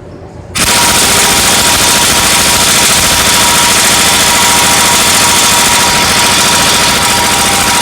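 Craftsman Professional 3/4-inch impact wrench hammering steadily on a nut, starting about half a second in, with a steady whine under the rattle. The nut turns hardly at all: it is already tight from a Harbor Freight half-inch impact wrench.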